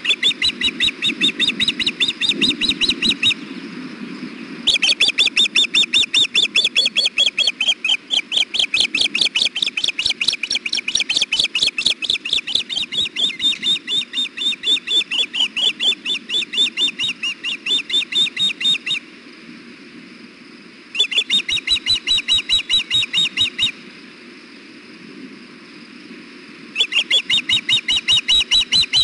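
Ospreys calling: long runs of rapid, high, whistled chirps, several a second, broken by a few short pauses.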